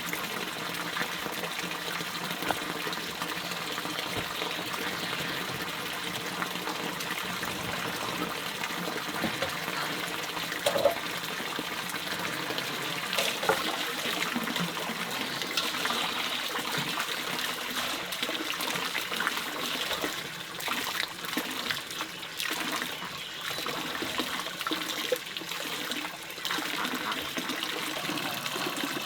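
Stream water flowing steadily, with scattered splashes and knocks, the sharpest about eleven seconds in and more of them in the second half.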